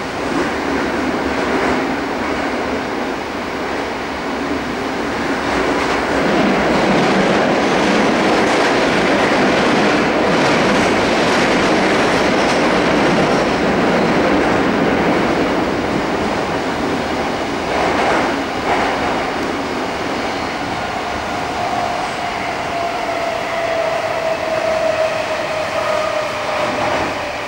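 Odakyu 4000 series electric train heard from inside the car, running through a subway tunnel: a loud, steady rumble of wheels and tunnel noise with some clickety-clack. From about two-thirds of the way in, a slowly falling whine from its Mitsubishi IGBT-VVVF inverter joins the rumble as the train brakes for the next station.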